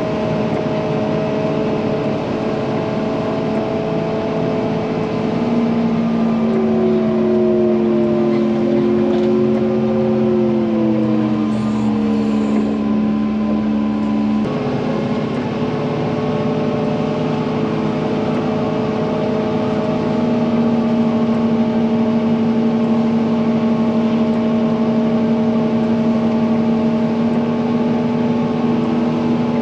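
Wheel loader's diesel engine running under load while plowing snow. Its note sags over several seconds, then returns to a steady pitch about halfway through.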